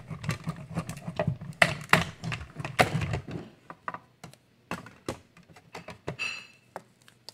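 Hand-cranked die-cutting machine pulling a stack of cutting plates and steel dies through its rollers, a low rumble with rapid clicks for about three seconds. After that come separate clicks and clacks as the plastic cutting plates are taken out and handled, with a brief squeak near the end.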